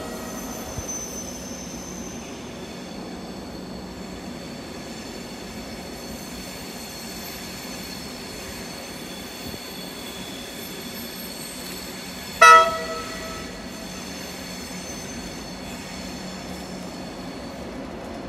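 Electric passenger train, led by an InterCity-liveried driving van trailer, moving slowly out of the station with a steady hum and faint high whine. A short horn blast sounds about twelve seconds in.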